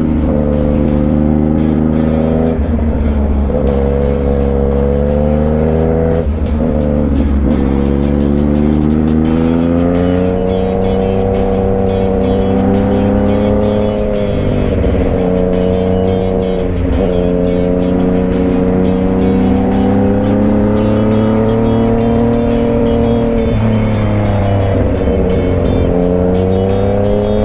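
Yamaha MT-09's inline-three engine running under way, its pitch climbing and falling as the rider accelerates and shifts gear several times.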